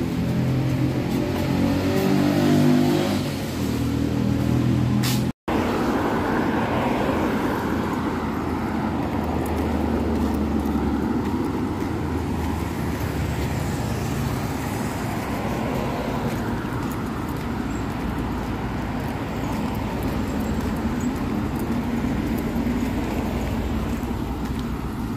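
Road traffic: a motor vehicle's engine running close by for the first few seconds, then a steady rush of passing traffic. The sound cuts out for an instant about five seconds in.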